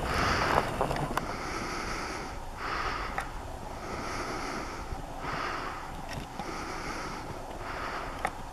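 A person breathing close to the microphone in slow, even breaths, a longer breath then a shorter one, repeating about every two and a half seconds, over a low wind rumble.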